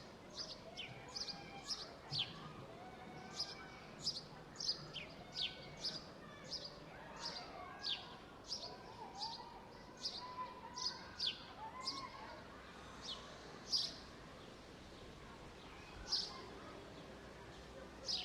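Park ambience: birds chirping, short sharp downward chirps about two a second that thin out over the last few seconds, over a faint murmur of distant voices.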